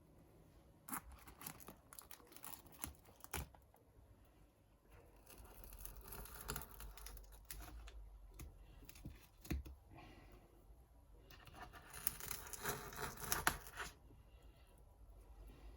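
Small hand tools scraping and clicking against an iPad's frame, with scattered sharp clicks early on and longer stretches of scratchy, tearing noise about halfway through and again near the end, as broken digitizer glass and adhesive are cleared from the frame.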